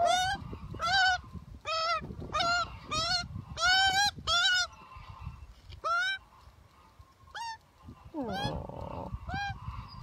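Young Australian magpie giving short, nasal squawking calls over and over, about one a second at first, then fewer and farther apart in the second half.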